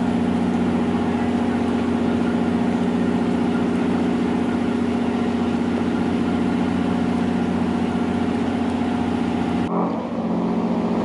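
A fishing boat's engine idling with a steady drone and a strong low hum. Near the end the sound shifts abruptly and the hiss above it drops away.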